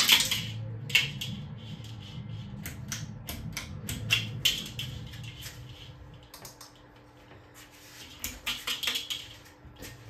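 Menards TOC Eros ceiling fan, a steady low motor hum under a string of sharp clicks and rattles as its pull-chain switches are worked. The hum fades about six seconds in, and the clicking picks up again near the end.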